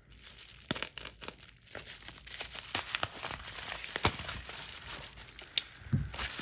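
Packing material being handled while a package is unwrapped: crinkling and rustling with many sharp crackles, starting just under a second in, and a louder knock about four seconds in.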